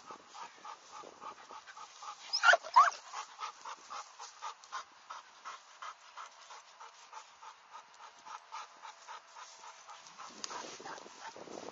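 A dog panting rhythmically, about three breaths a second, with two short, loud, high squeals about two and a half seconds in.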